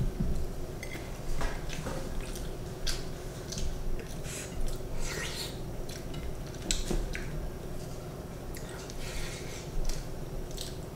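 Eating sounds from people taking rice with their fingers: irregular wet squishing, chewing and lip smacks, with a few light clicks against plates.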